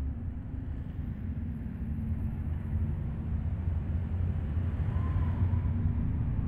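A steady low rumble, with a faint brief tone coming in about five seconds in.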